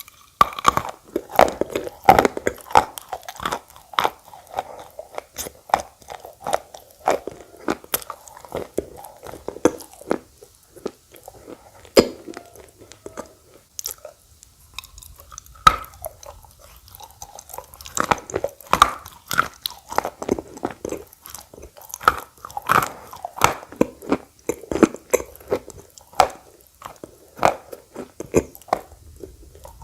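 Close-up sounds of someone biting and chewing dry red khawa clay balls: crisp crunches that come in irregular clusters.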